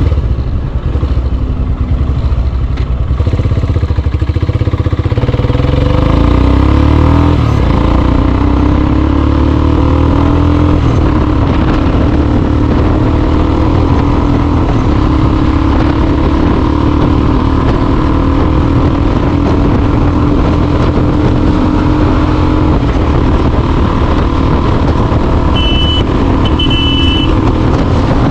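A Royal Enfield Himalayan's single-cylinder engine running through a Red Rooster aftermarket performance exhaust while being ridden. It pulls up through the revs over the first several seconds, then holds a steady cruise. Two short high beeps sound near the end.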